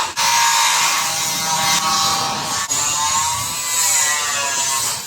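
Power tool whining, its pitch wavering up and down over a steady hiss, with two brief breaks, typical of tyre-shop work on a motorcycle wheel.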